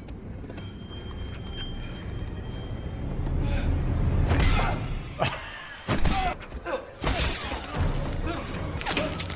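Horror film soundtrack: a low rumble swells over the first few seconds, then sudden crashes and impacts hit about four and a half, five and seven seconds in, over tense music.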